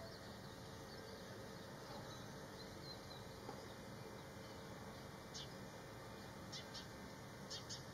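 Faint, short, high-pitched bird calls over a steady low background hiss. There is one call about five seconds in, then two quick pairs near the end.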